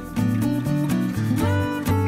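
Background music led by acoustic guitar: plucked and strummed notes on a steady beat, with a few notes sliding up in pitch about one and a half seconds in.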